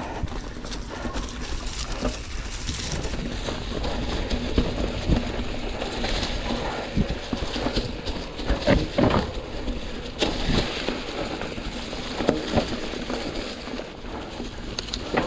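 Mountain bike rolling along a leaf-covered dirt trail: tyres crunching through dry fallen leaves, with frequent clicks and knocks as the bike rattles over rocks and roots, loudest about two-thirds of the way through. A low wind rumble on the microphone sits underneath.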